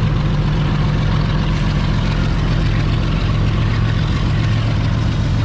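A heavy engine running steadily at an even pace, with a deep, unchanging hum.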